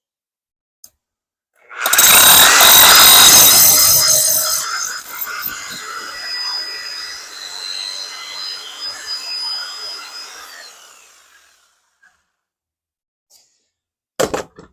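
Bosch hammer drill boring a hole. It starts about two seconds in and is loudest for the first couple of seconds, then runs on more quietly with a steady whine before stopping. A short knock comes near the end.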